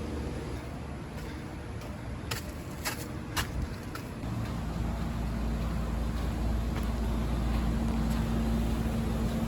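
A motor engine running steadily, getting louder from about halfway through, over a low rumble, with a few sharp clicks in the first half.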